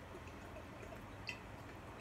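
Faint gulping as two people chug from glass bottles, liquid moving in the bottles, with one small click a little over a second in.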